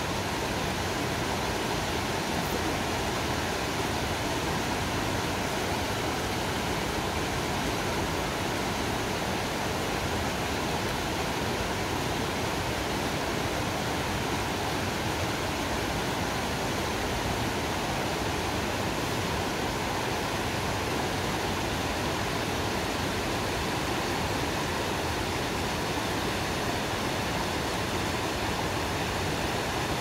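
Small rainforest creek cascading over boulders: a steady, even rush of water.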